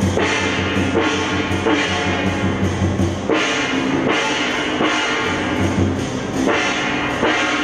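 Music with a drum beat and bass.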